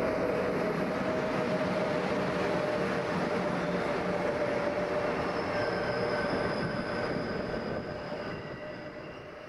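A train running on the rails: a steady rushing rumble with a few thin, held whining tones over it, dying down near the end.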